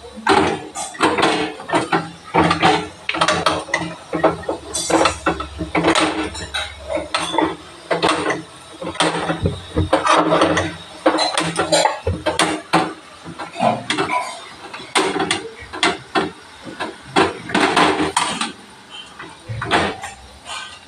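Gathiya dough pressed and rubbed by hand across a perforated metal gathiya sieve resting on an iron kadai. It makes rapid, irregular scraping strokes and clinks of metal against metal.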